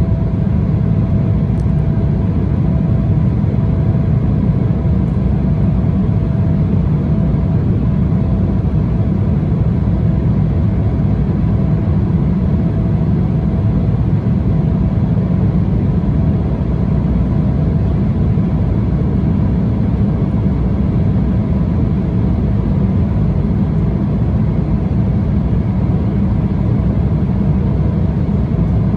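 Steady cabin roar of an Embraer E175 jet in flight during the climb: a deep, even noise of the GE CF34 turbofans and the airflow past the fuselage, with a faint steady whine held underneath.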